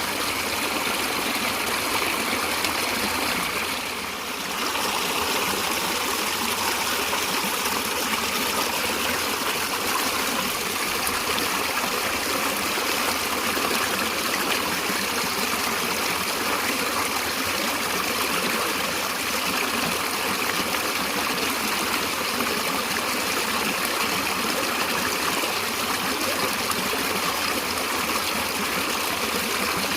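A stream of water running steadily, an even rushing and trickling, briefly a little softer about four seconds in.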